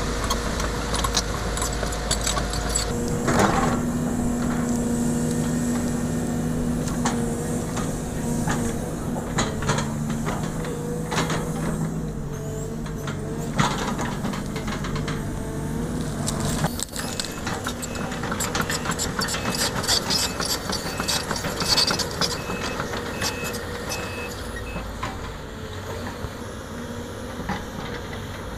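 Sumitomo SH210 hydraulic excavator's diesel engine running under working load, its pitch shifting a few times as the bucket digs and drags through brush and soil. Frequent clicks and knocks from the bucket and debris run over it.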